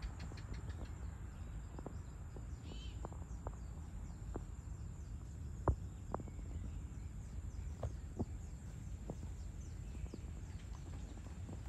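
Evening outdoor ambience: a steady low rumble with a thin, steady high insect drone over it. A bird chirps once about three seconds in, and there are scattered faint clicks, the sharpest just before six seconds.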